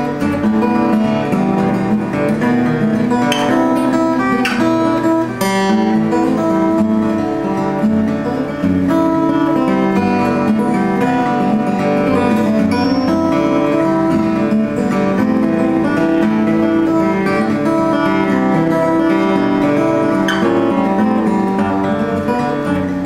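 A 1932 Martin OM-18 acoustic guitar played without pause, plucked notes and chords ringing in an echoey room.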